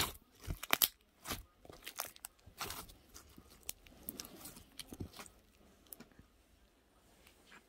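Slime being kneaded and stretched by hand, giving off irregular sticky pops and crackles that are busiest in the first three seconds and thin out later.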